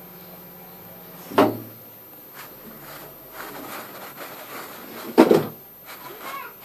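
A cloth rubbing and wiping over the rusty plate of an electric hot plate, with two knocks, one about a second and a half in and a louder one near the end.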